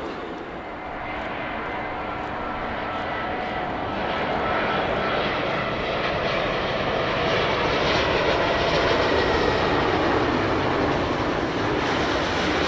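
Engines of a large jet airliner on landing approach: a steady rushing noise with a faint whine, growing louder over several seconds as the aircraft comes nearer, then holding loud.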